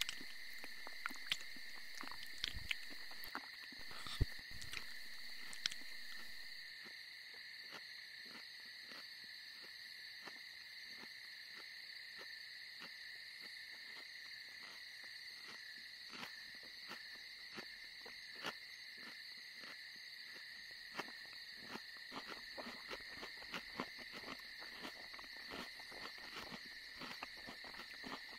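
Steady high insect trilling, like crickets at night, with scattered small crisp clicks. A few louder clicks come in the first six seconds, and the clicks grow more frequent in the last third.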